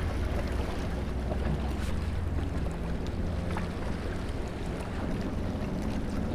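Steady wind rumbling on the microphone, with choppy seawater washing against shoreline rocks.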